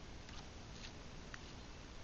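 Faint steady hiss with three soft, short ticks spread across it.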